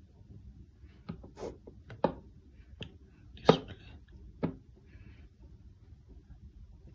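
Fingertips tapping on an Apple Watch SE's screen and case: about six short taps spread over a few seconds, the loudest about three and a half seconds in.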